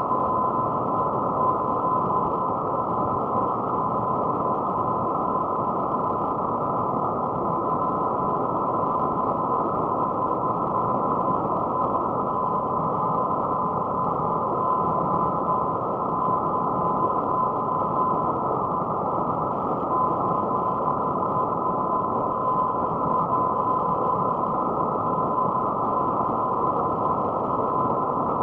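Horror ambience sound effect: a steady, unchanging droning rumble with a thin steady whine held above it.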